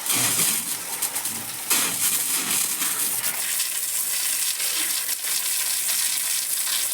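Water gushing and splashing steadily, starting suddenly and surging again about two seconds in.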